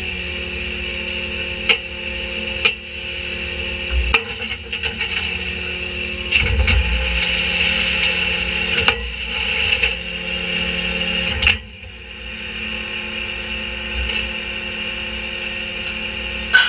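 Rear-loader garbage truck's engine and hydraulics running with a steady hum, louder for a few seconds in the middle. Wooden chairs and boxes land in the steel hopper with several sharp knocks and clatters.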